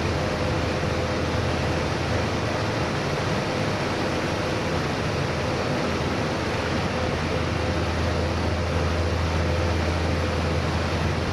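Steady machinery noise inside a desalination plant hall: an even rushing drone with a constant low hum and a faint steady whine above it.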